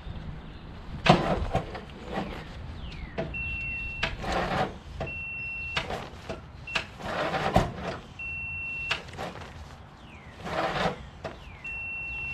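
An electronic beeper sounding a steady, high-pitched tone five times, each beep lasting from under a second to about two seconds, between several bursts of clattering handling noise.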